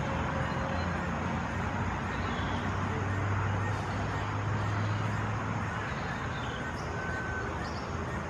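Steady outdoor background rumble and hiss with a low hum, of the kind distant road traffic makes. A few faint, short, high chirps come near the end.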